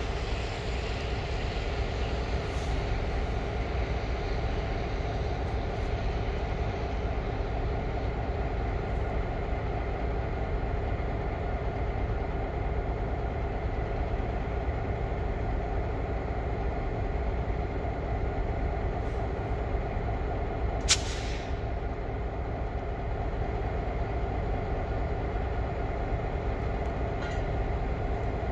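EMD GP9RM diesel switching locomotives running steadily with a low, even engine drone. A single brief sharp click sounds about three quarters of the way through.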